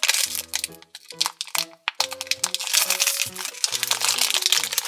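Plastic wrapping crinkling and tearing as small toy packets are unwrapped by hand, over light background music.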